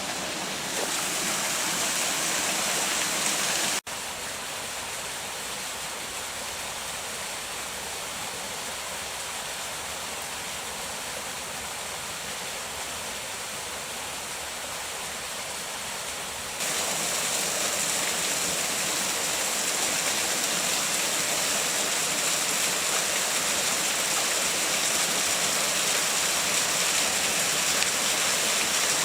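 Waterfall rushing steadily. The level drops abruptly about four seconds in and comes back up a little past the middle.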